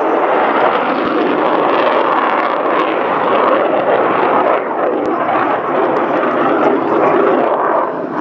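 Loud, steady jet noise from a MiG-29 Fulcrum's twin Klimov RD-33 turbofan engines as the fighter flies its display manoeuvres.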